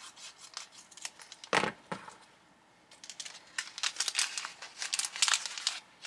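Small plastic packet crinkling as it is handled and opened by hand: a string of short, sharp crackles, one louder near the start and then a dense run through the second half.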